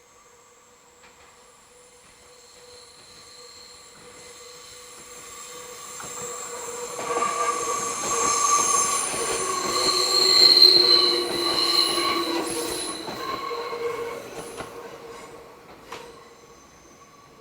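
Meitetsu train wheels squealing against the rails on a tight curve: several high steady squeal tones over a rolling rumble, growing louder as the train comes on, loudest about ten seconds in, then fading as it passes. A single sharp click sounds near the end.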